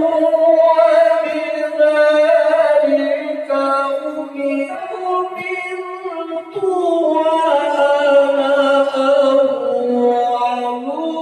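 A man's voice through a microphone reciting the Quran in the melodic tilawah style. The notes are long and sliding, with ornaments, broken by short pauses for breath about five and six and a half seconds in.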